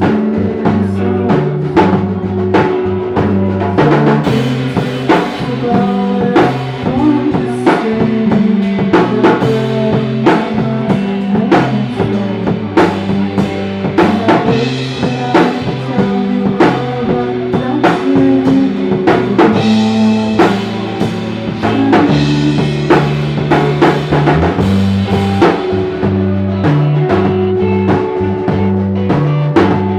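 A live band playing a song: a drum kit with steady snare and bass drum hits, a bass guitar line stepping between low notes, and guitars.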